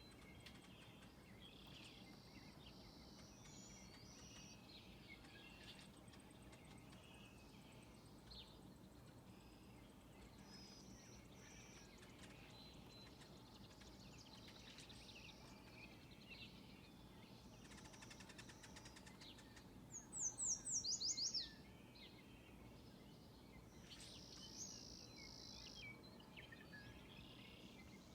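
Faint morning chorus of several songbirds singing over a steady low background noise. About twenty seconds in, a nearer bird gives a louder run of about eight quick notes, each sliding down in pitch.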